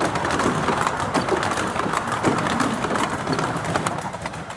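Ride noise on board a miniature railway's open passenger carriages: steel wheels rumbling along the track with a steady run of irregular clicks and clatter.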